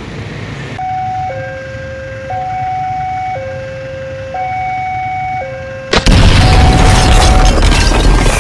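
A two-tone hi-lo siren alternates between a higher and a lower pitch, each held about a second. About six seconds in, a sudden loud boom breaks in and loud noise continues, with the siren tones still faintly beneath it.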